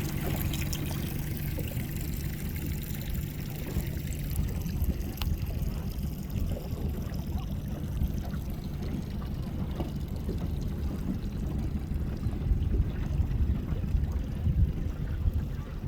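Ocean water lapping and trickling, over a steady low rumble. Small splashes are clearest in the first couple of seconds.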